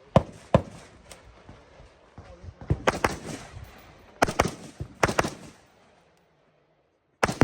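Rifle shots on a shooting range: a series of sharp cracks at irregular spacing, some in quick pairs. They fall to near silence about six seconds in, with one more crack near the end.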